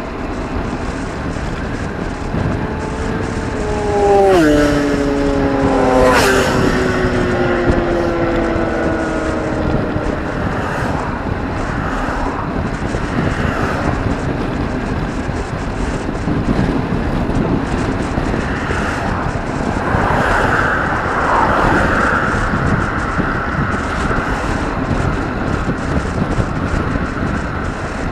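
Wind rushing over the microphone of a bicycle-mounted camera. Motor vehicles pass: the first, a few seconds in, has an engine note that drops sharply in pitch as it goes by, and a second passes about twenty seconds in.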